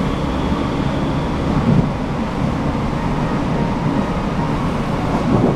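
Inside the carriage of an Irish Rail 8510-class DART electric train on the move: a steady low rumble of wheels and running gear.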